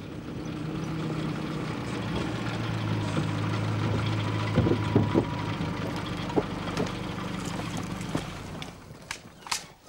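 Land Rover Series four-wheel drive running on a dirt track, its engine hum growing louder as it approaches. A few knocks and rattles come about halfway through, and the engine sound dies away near the end as it pulls up.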